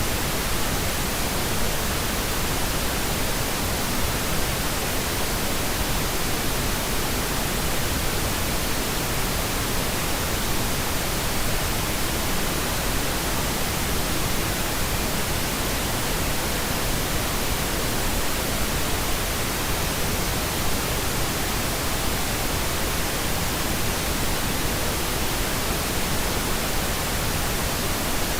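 Steady white noise from a white noise machine: an even, unchanging hiss spread across all pitches, with no rhythm or breaks.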